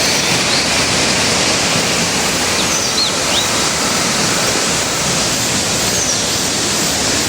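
Flowing water rushing steadily, with a few faint bird chirps about three seconds in and again near six seconds.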